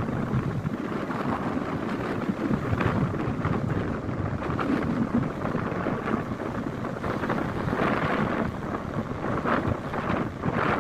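Strong gusting wind buffeting the microphone, a loud rushing rumble that swells and dips, as the typhoon's wind picks up over the bay.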